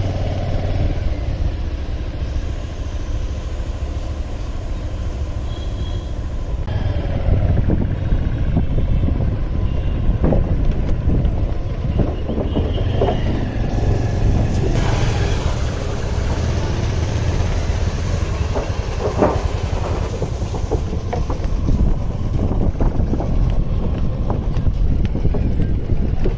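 Motorcycle riding, its engine running under a steady low rumble of wind on the microphone, with a few sharp knocks and rattles.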